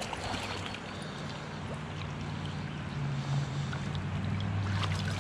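Flowing river water rushing around a wader, with light splashing from a hooked brown trout at the surface, over a low steady hum.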